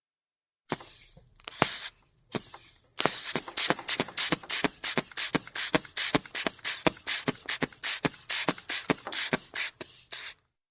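Rubber inflation bulb of a manual sphygmomanometer squeezed over and over to pump up the cuff, about three squeezes a second, each a short thump with a puff of air. A few separate handling sounds come before the pumping starts.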